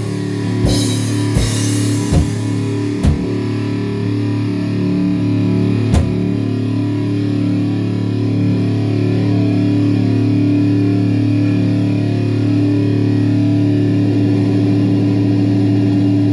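Heavy rock music with electric guitar: a few drum hits in the first six seconds, then a single held guitar chord rings on to the end.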